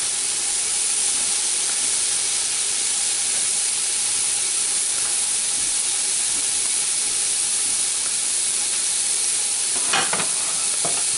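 Chuck roast sizzling as it sears in hot oil in an electric pressure cooker's inner pot: a steady hiss, with a few short crackles near the end.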